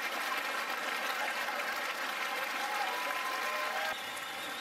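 Audience applauding after a joke's punchline, easing off slightly near the end.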